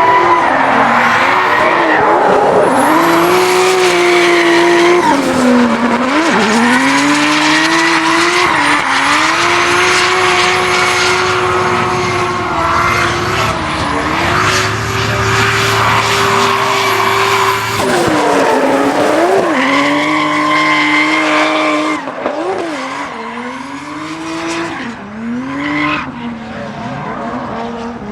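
Tuned Toyota GR Supra Mk5's B58 engine held at high revs while drifting, with the tyres squealing. The engine pitch drops sharply and climbs back several times, and the sound is a little quieter in the last few seconds.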